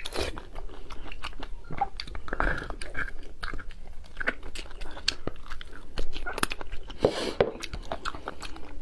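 Close-miked eating: chewing and sucking soft marrow from roasted marrow bones, with many irregular sharp wet clicks and mouth smacks.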